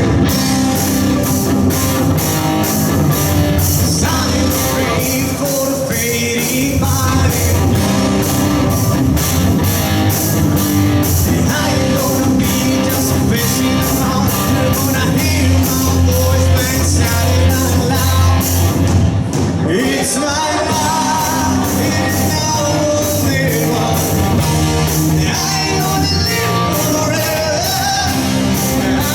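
Live rock band playing loudly in a large hall: drum kit keeping a steady beat, electric guitar and bass, with a male singer over them.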